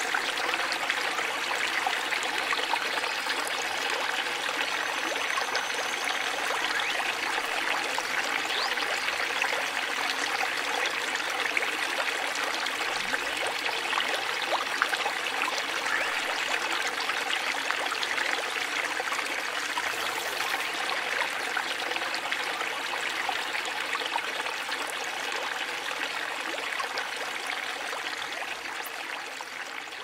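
Water trickling and splashing over the small cascades of a garden stream and running across shallow stones and pebbles, a steady unbroken sound that fades out near the end.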